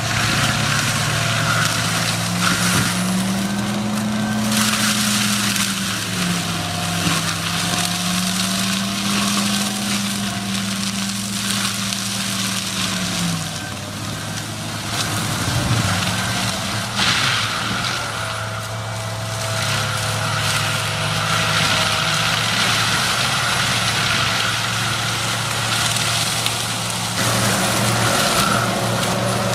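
Heavy machine's engine running steadily under load, its pitch rising and falling, over a continuous loud grinding and crushing of wood from a stump grinder or wood crusher.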